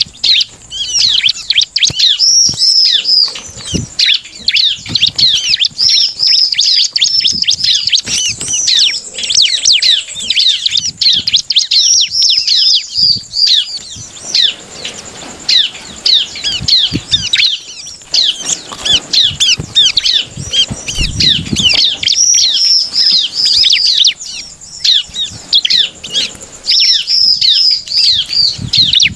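Caged bar-winged prinia (ciblek) singing a fast, near-continuous chattering song of quick high sweeping notes, with a few short breaks. Its wings flutter and it lands with soft thuds as it hops about the cage.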